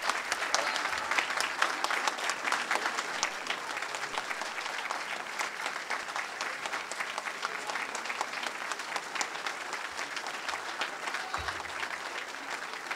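Audience applauding: a roomful of people clapping steadily, easing off a little toward the end.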